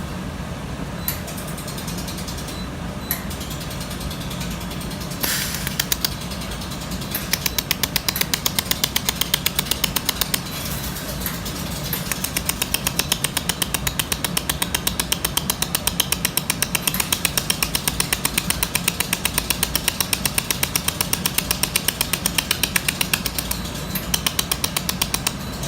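Handheld laser welder stitch-welding sheet metal: a rapid, regular train of sharp ticks, several a second, beginning about seven seconds in over a steady machine hum.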